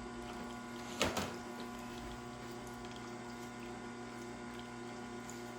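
Steady hum of a Tormek water-cooled sharpener running, its stone turning in the water trough, with one sharp knock about a second in.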